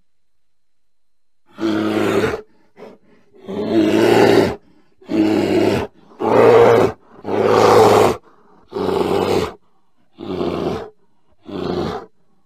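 Bear vocalizing in a series of about eight short, rough calls, each under a second long, separated by brief pauses and starting about a second and a half in.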